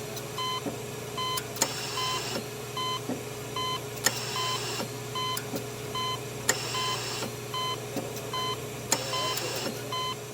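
Steady machine hum with a short electronic beep repeating about every half second and a brief hiss returning every two to three seconds.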